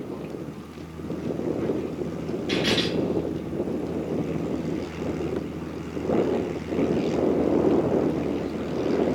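Light aircraft's propeller engine running steadily, with gusts of wind buffeting the microphone and a brief hiss about two and a half seconds in.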